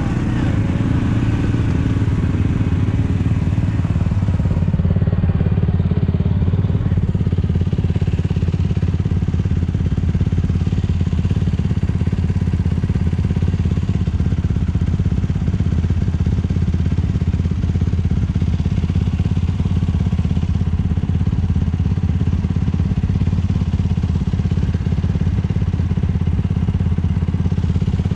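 ATV engine running steadily at an even pitch.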